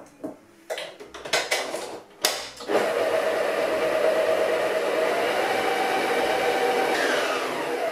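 Knocks and clatter as the stand mixer's head is lowered and locked, then the mixer's electric motor starts about three seconds in and runs at a steady whine, its beater mixing an egg into creamed butter and sugar. Near the end the whine falls in pitch as the motor is switched off and spins down.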